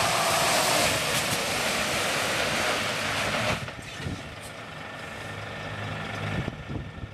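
Scania truck braking to a stop on a wet road under its automatic emergency braking system: a loud hissing rush that drops off suddenly about three and a half seconds in as the truck halts, leaving the diesel engine idling with a low hum.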